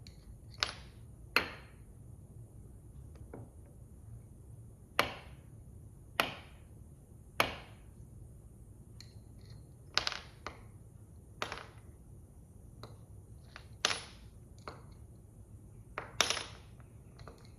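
Steel screwdriver shaft clicking and knocking against the upturned magnetic parts dish as it is stroked across the magnet to magnetize it. There are about a dozen sharp, irregularly spaced clicks, each with a short ring.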